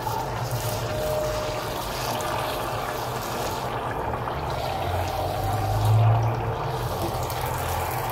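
Puris deep-frying in hot oil: a steady sizzle and bubbling of the oil. A low hum runs underneath and swells briefly about six seconds in.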